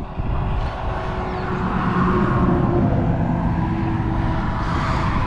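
A motor vehicle's engine running close by, a steady hum with low rumble that grows louder over the first two seconds and then holds.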